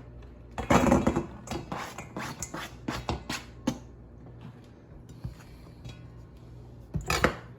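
Bowls and utensils knocking and clattering on a kitchen counter while food is handled, in a run of sharp knocks in the first few seconds and another near the end, over a steady low hum.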